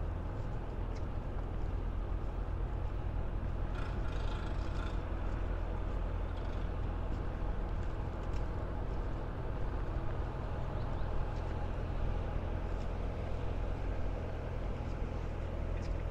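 A steady low engine drone under outdoor city ambience, with a brief higher sound about four seconds in.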